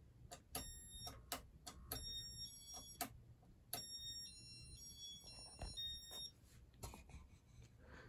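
The electronic beeper of a 1987 Casablanca Four Seasons ceiling fan plays a quiet run of beeps that step up and down in pitch as the fan starts its built-in demo mode, with a few sharp clicks among the tones.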